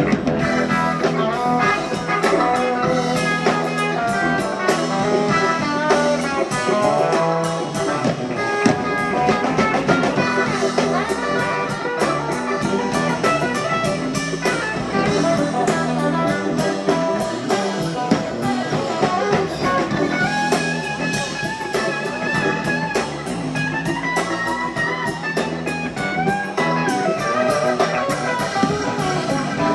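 Live band playing a long instrumental jam, with an electric guitar lead with bending notes over drums and the rest of the band.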